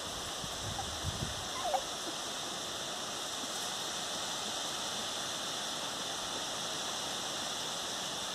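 Steady outdoor noise hiss, with one faint short squeak about a second and a half in.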